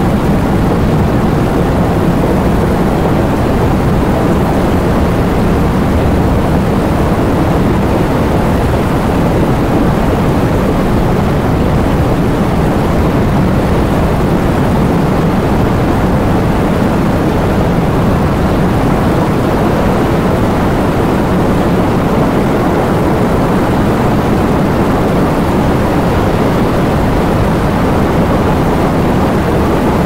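Heavy rain with wind: a steady, dense rush of noise, heaviest in the low range, with no breaks.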